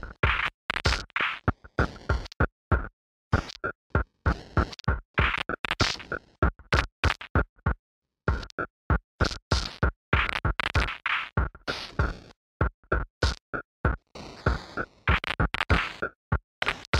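Chopped, stuttering audio collage: rapid fragments a fraction of a second long, each cut off abruptly, with a few short stretches of dead silence between runs.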